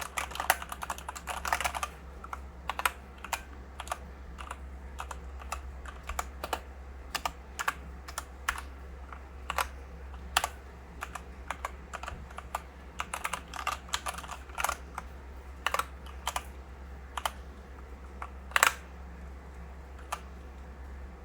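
Typing on an iRocks K75M mechanical keyboard with Gateron switches and PBT keycaps. A quick run of keystrokes comes first, then single key presses at uneven intervals, with another quick run about two-thirds of the way through.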